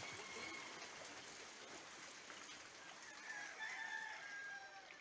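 A rooster crows faintly a little past the middle, over a steady hiss of flowing floodwater.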